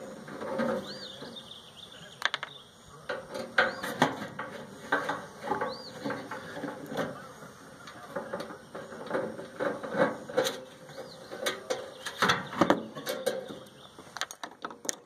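Irregular clicks, clanks and rattles of tools and metal parts as a microwave is taken apart, with a short high chirp now and then.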